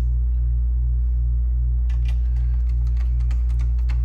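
Steady low electrical hum throughout, with light clicks from about two seconds in as screws and metal chassis parts are handled.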